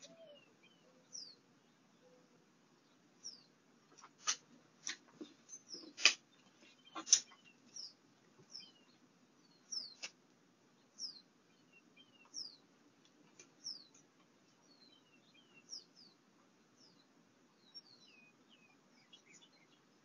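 Small birds chirping, short high falling chirps roughly once a second, over a faint steady low hum. A few sharp clicks or taps between about four and seven seconds in are the loudest sounds.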